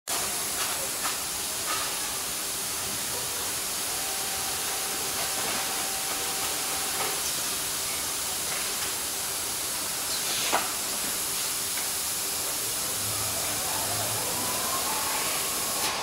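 Automated pallet load-securing line running: a steady hiss of machinery, with a few clicks. A short steady whine is heard a few seconds in, and a sharp sweep comes about ten seconds in. Rising tones and low thuds come near the end, as the corner boards are folded and the wrapping arm starts to turn.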